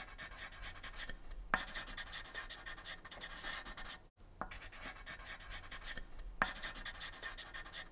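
Soft, continuous scratching of strokes on a surface, made of fine rapid ticks, with a brief drop-out about four seconds in.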